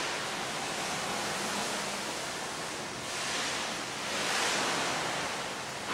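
Bridgeport Interact I CNC vertical milling machine running its program in automatic mode: a steady rushing hiss with no clear whine, swelling and easing a few times.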